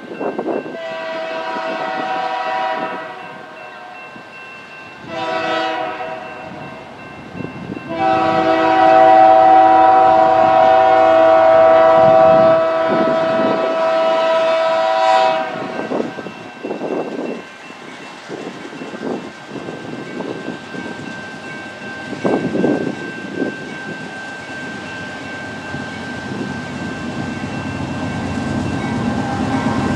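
Freight locomotive's air horn sounding a chord of several tones in three blasts: a long one, a short one, then a longer one of about seven seconds, as the train approaches. After the horn, the rumble of the oncoming locomotives grows steadily louder toward the end.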